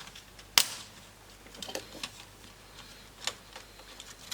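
Plastic clips of a laptop screen bezel clicking as the bezel is pried off: one sharp click about half a second in, then a few fainter clicks spread over the next few seconds.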